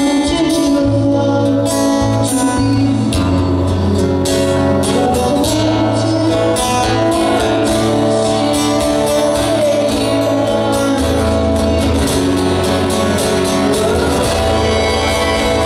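Live music: a man singing over a strummed acoustic guitar, with held low bass notes beneath.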